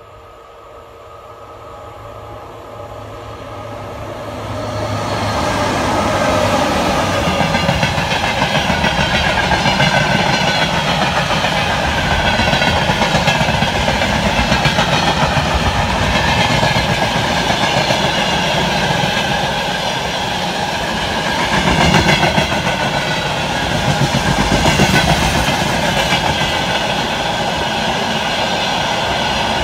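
A long freight train of tank wagons approaches and passes close by, its wheels clattering over the rail joints in a steady, rapid rhythm. The sound builds over the first five seconds as the locomotive nears, then stays loud while the wagons roll past, swelling briefly a couple of times near the end.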